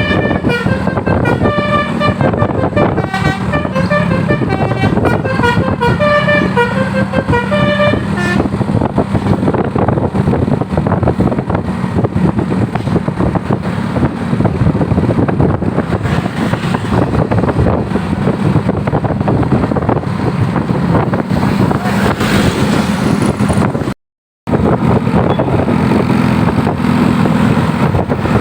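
Bus telolet 'basuri' multi-tone musical horn playing a fast melody of stepped notes over a steady drone for about eight seconds. Then heavy vehicle engine and road noise, with a brief cut to silence about 24 seconds in.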